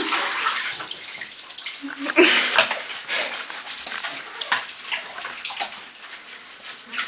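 Water sloshing and splashing in a shallow bathtub as a cat is lowered in and washed by hand, with a louder splash and a short cat cry about two seconds in.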